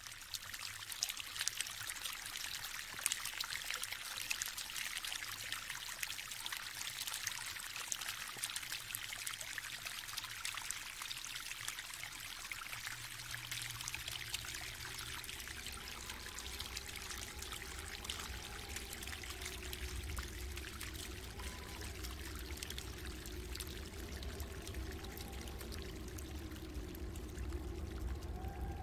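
Shallow stream water trickling and babbling over stones and sand, a steady hiss full of fine crackles. About halfway through a low rumble joins in, with faint wavering tones behind the water.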